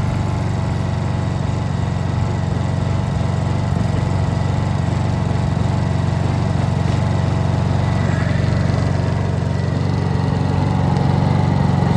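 Honda EU2200i inverter generator's single-cylinder four-stroke engine running steadily just after being pull-started on its newly replaced recoil rope, showing the repair works.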